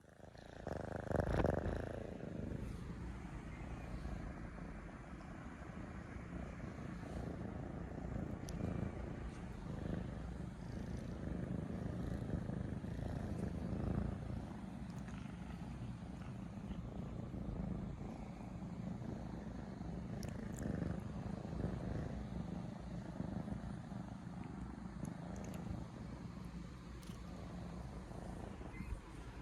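Two kittens purring close to the microphone: a steady, low, pulsing rumble that runs on throughout, with a brief louder noise about a second in.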